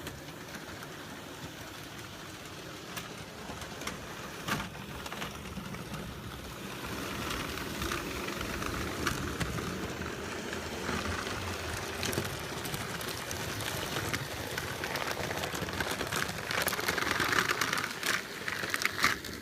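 Electric Thomas & Friends model trains running on a layout: a steady rattle of wheels and motors on the track, with occasional sharp clicks, growing louder over the second half.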